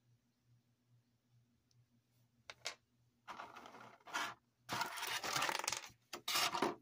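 Clear plastic blister tray from an action-figure box being handled, crinkling in three bursts over the last four seconds, after a couple of small clicks.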